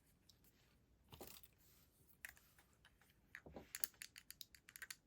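Near silence with faint handling sounds of small stationery items: a brief soft rustle about a second in, then a run of light clicks and taps in the second half.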